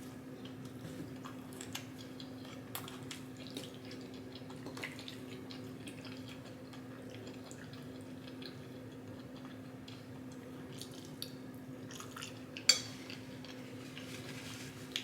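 Close-miked eating of pasta and meatballs: soft chewing and small wet mouth sounds, with light clicks of a fork on the plate. One sharp clink stands out about three-quarters of the way through. A steady low hum runs underneath.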